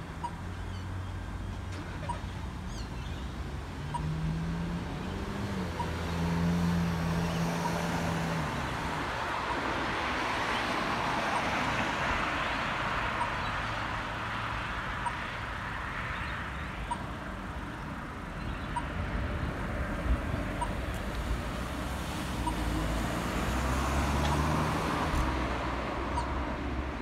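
Road traffic: cars driving past on a multi-lane road, engine and tyre noise swelling and fading, loudest in the middle. A faint, regular tick sounds about once a second throughout.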